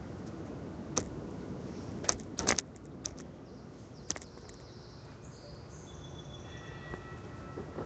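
Steady low hum of city traffic, with a handful of sharp clicks and clinks in the first half and faint, thin high-pitched squeaks in the second half.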